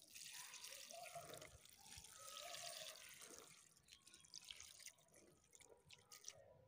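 Water poured from a bowl into an aluminium pot, splashing steadily onto cabbage leaves and herbs, and stopping near the end.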